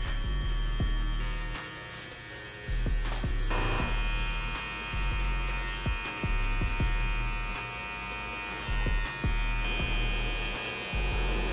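Cordless electric hair clippers buzzing steadily while cutting a fade on short hair, the tone shifting about a third of the way in and again near the end.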